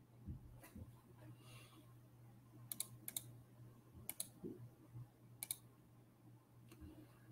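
Faint computer clicks at a desk, a handful of sharp clicks mostly in quick pairs from about three seconds in, over a low steady hum in otherwise near silence.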